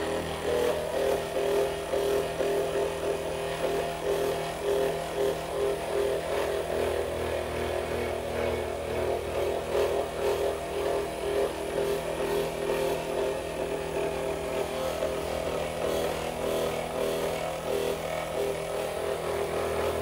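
Handheld percussion massage gun running steadily against the shoulder: a motor hum with rapid, even pulsing from the hammering head.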